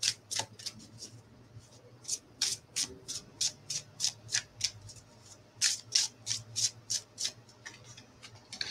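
Oracle cards being shuffled by hand: runs of quick, crisp card snaps, about four or five a second, with short pauses about two seconds and five seconds in, over a faint low hum.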